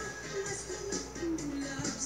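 Dance music with a melody line and a steady beat.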